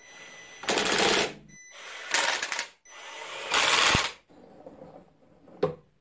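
Compressed air blowing from a flexible segmented air nozzle in three hissing blasts of about a second each, followed by a short knock near the end.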